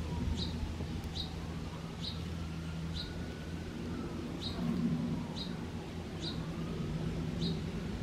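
A small songbird chirping over and over, one short high chirp a little less than once a second, with a brief pause midway, over a steady low hum.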